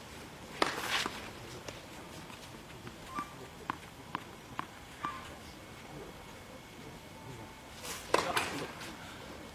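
Tennis ball and racket sounds on a clay court: a run of light, sharp taps about every half second through the middle, then a louder burst of sound near the end.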